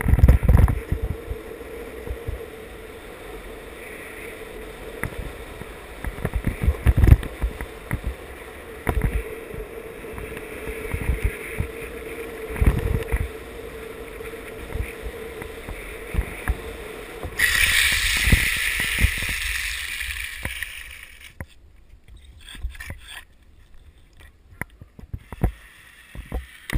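Longboard urethane wheels rolling fast on asphalt with a steady hum and repeated low thumps. About 17 seconds in a loud hissing scrape lasts some three seconds as the wheels slide across the road, and then the rolling goes quieter and uneven.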